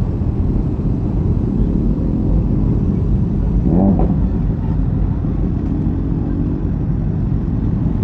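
Kawasaki ZX-6R inline-four on its stock exhaust running at low revs with a steady low rumble as the bike rolls slowly to a stop. About four seconds in, a short pitched sound rises and falls.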